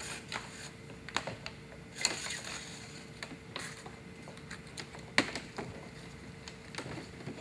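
Irregular light clicks, taps and short scrapes of a gauge sender wire being handled and fed through a diesel engine bay, with a sharper knock about two seconds in and another about five seconds in. A faint steady hum runs underneath.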